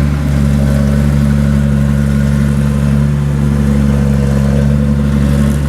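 Rice combine harvester running steadily while harvesting, a constant loud engine drone.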